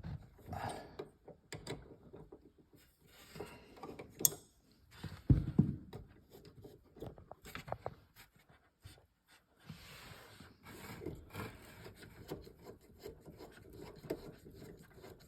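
Hands and tools working on the seatbelt fittings and plastic interior trim of a car: rubbing and scraping with scattered small knocks and clicks. The loudest is a couple of knocks about five to six seconds in.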